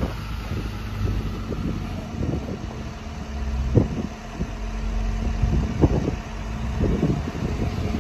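Kodiak C4500's Duramax diesel engine running steadily as the truck pushes snow with a V-plow, with a few short knocks, the sharpest about four and six seconds in.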